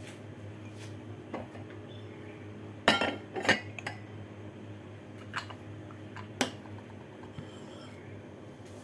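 Utensils knocking and clinking against glass and dishware: a few scattered single clinks, with a louder cluster of knocks about three seconds in, over a steady low hum.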